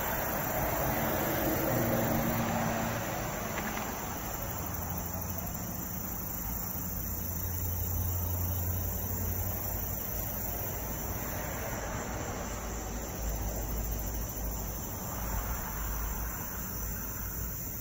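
Crickets chirping steadily in the night, with soft brush strokes on paper swelling up now and then and a low rumble coming and going.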